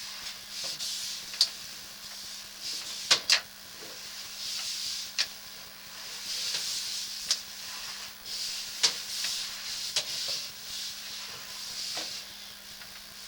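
Sewer inspection camera rig being worked through a drain line: a rubbing hiss that swells and fades every second or two, sharp clicks now and then, and a steady low hum underneath.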